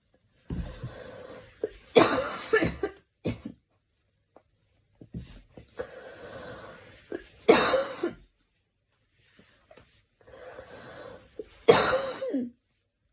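A girl coughing in three bouts a few seconds apart. Each bout is a quieter drawn-out breath ending in loud, short coughs.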